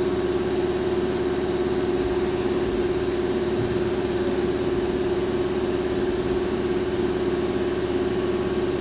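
Lathe running steadily: an even machine hum with a faint high whine above it.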